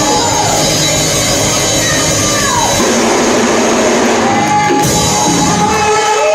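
Loud live worship music with sustained chords under it and raised voices rising and falling over it.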